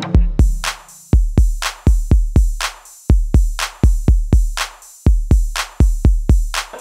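Background music: a drum-machine beat of deep kick drums and sharp hits, with no melody.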